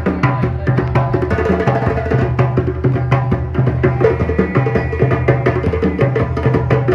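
Music led by fast hand-drum percussion, a dense run of quick strikes over a steady low bass.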